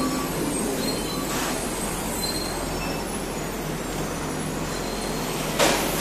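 Train running on the elevated railway track overhead, a steady noise without pauses. A short, loud hiss cuts in about five and a half seconds in.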